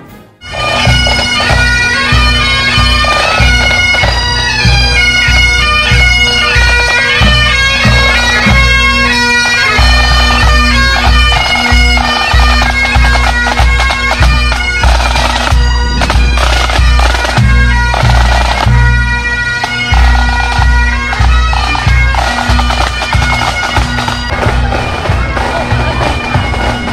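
Pipe band marching past: bagpipes playing a tune over their steady drone, with snare and bass drums beating under it.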